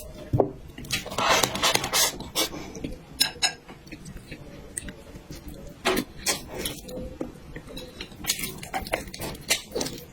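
Eating utensils clicking and scraping against dishes in irregular clinks, with short noisy bursts of eating in between.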